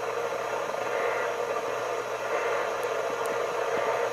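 Steady hiss of static from a NOAA Weather Radio receiver, with a faint low hum underneath.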